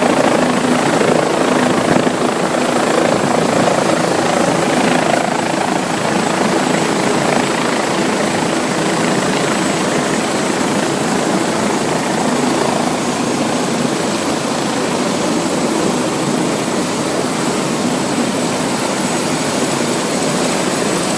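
Helicopter running steadily, a loud even engine-and-rotor noise with a thin high whine.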